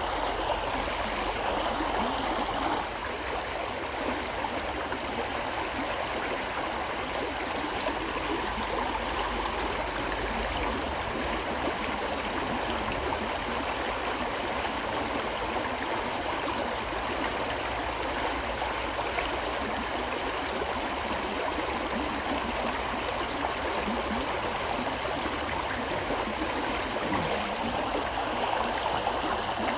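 A gently flowing river: a steady, unbroken rush of running water.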